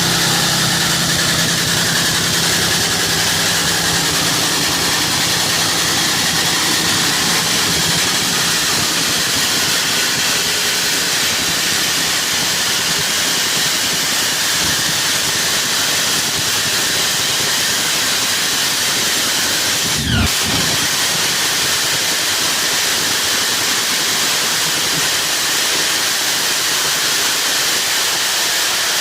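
Nitromethane-fuelled drag racing engine running, heard as a loud, steady, hiss-like roar, with a single low thump about two-thirds of the way through.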